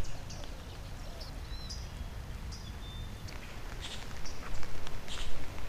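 Birds calling outdoors, a few short chirps, over a steady low rumble. From about four seconds in come a run of short, crisp scuffs.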